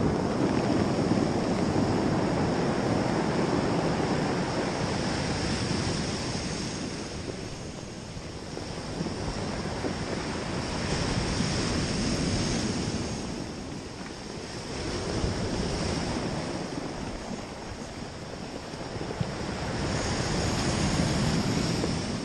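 Ocean surf breaking and washing over a cobble beach, swelling and easing in slow waves every few seconds, with wind on the microphone.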